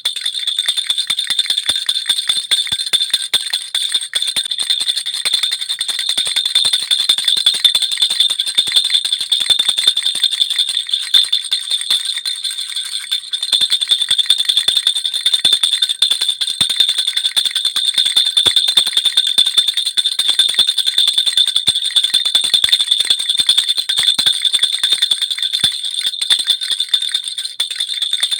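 Baby rattle (jhunjhuna) with small bells, shaken continuously: a dense, fast jingling over a steady high ringing, with a brief lull about halfway.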